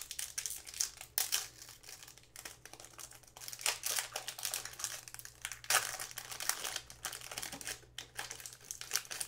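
Foil trading-card pack being torn open and handled: irregular crinkling and crackling of the foil wrapper.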